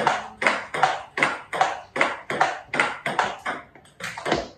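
Table tennis rally on a small table: the ball clicking in turn off the paddles and the table top, about two or three hits a second, with a brief gap about four seconds in.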